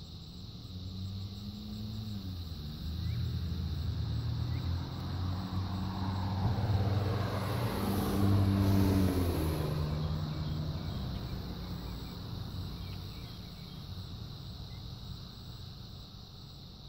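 A motor vehicle passing by: its engine and road noise build up gradually, are loudest about eight to nine seconds in, then fade away.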